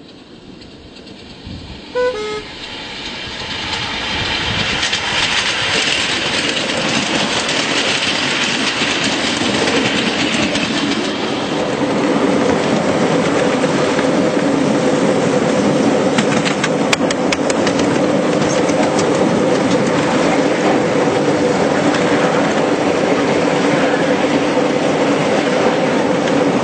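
A brief two-note toot about two seconds in, then a miniature railway train running along the track: a steady rumble and clatter of wheels on rail that builds over the first few seconds.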